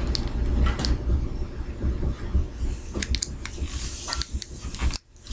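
Fingers picking and crinkling at small plastic packaging on a tiny toy figure, light clicks and a patch of crinkle in the middle, over a steady low rumble. The sound cuts out briefly near the end.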